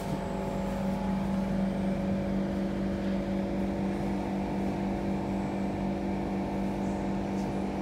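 Siemens C651 electric train heard from inside, humming steadily: a low hum with several higher steady tones from its electrical equipment, none rising or falling in pitch.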